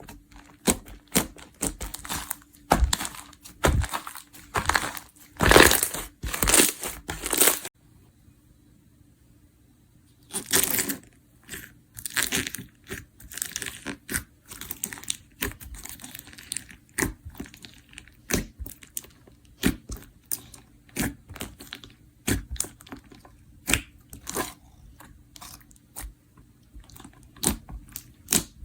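Slime being squeezed and pressed by hand, giving crisp crackling and crunching with many sharp pops. The crackling is dense at first, stops for a couple of seconds about eight seconds in, then comes back sparser.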